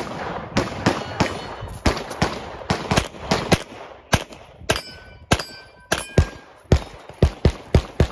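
Single-stack pistol fired rapidly through a USPSA stage, about twenty shots in quick pairs and singles. Around the middle, a few hits are followed by the ringing of struck steel plates.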